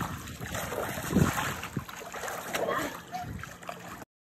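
Water splashing and sloshing in a small inflatable pool as two children move through it and come up out of the water; it cuts off suddenly near the end.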